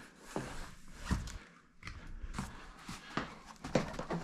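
A large cardboard shipping box being handled: scattered light knocks, bumps and cardboard rustles as the open flaps are pushed about and the box is gripped to be tipped over.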